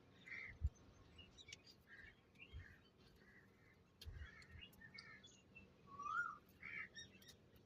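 Faint, scattered bird chirps, short calls every second or so with one small rising call about six seconds in, with a few soft low thumps.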